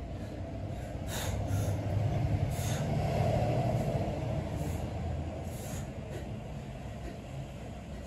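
A lifter's short, sharp breaths during bench press reps, several in turn, over a steady low rumble that swells for a couple of seconds in the middle.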